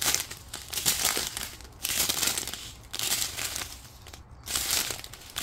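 Small clear plastic bags of diamond-painting resin drills crinkling as they are handled and turned over, in irregular bursts about once a second.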